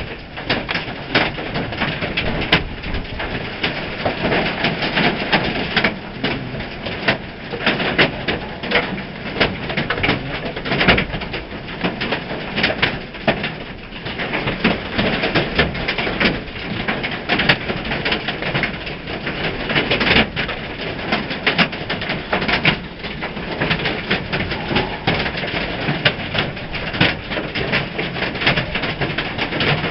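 Hail pelting a barn roof: a dense, steady clatter of countless hits.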